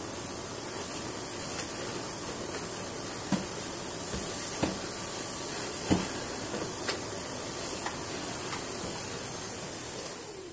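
Canister vacuum cleaner running steadily while hoovering a tiled floor, with a handful of short knocks as the wand and hose are moved about and bump against things.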